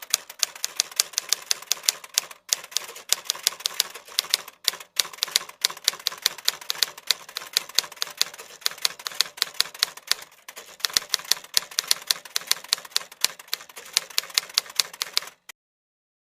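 Rapid typewriter key clicks, several strikes a second, with short breaks about two and a half and four and a half seconds in. The clicking stops about a second before the end.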